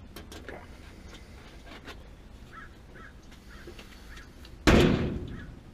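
Faint clicks and taps of hand work, then a sudden loud thump near the end that dies away over about a second.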